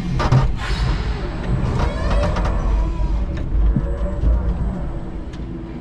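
A 5-ton electric forklift truck moving, heard from its cab: a steady low rumble of the truck rolling over the floor, with the whine of its electric motors rising and falling and a few short knocks.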